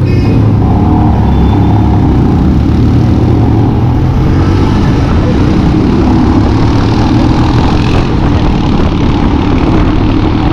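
Royal Enfield Himalayan's single-cylinder engine running as the motorcycle pulls away from a stop and rides along. Wind and road noise build up from about four seconds in.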